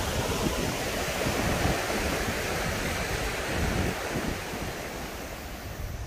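Rushing mountain stream, high after rain, pouring white over rocks and a low concrete weir, with wind rumbling on the microphone. The water grows fainter in the last couple of seconds.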